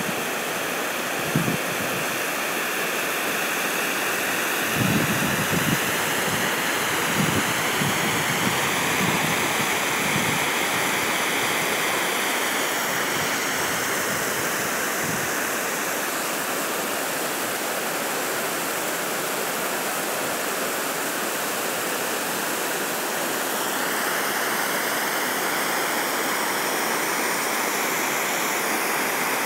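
Water pouring over a low concrete dam spillway: a steady rushing hiss, with a few brief low thumps in the first several seconds.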